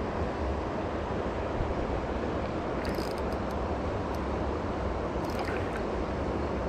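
Steady rush of flowing river water, with a couple of faint clicks about three and five seconds in.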